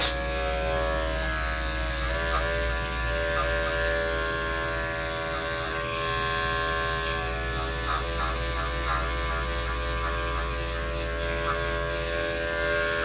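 Corded electric dog-grooming clipper with a #10 blade buzzing steadily as it shaves a dog's head, its hum wavering briefly in pitch a few times.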